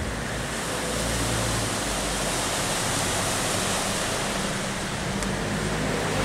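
Floodwater across a street making a steady rushing hiss.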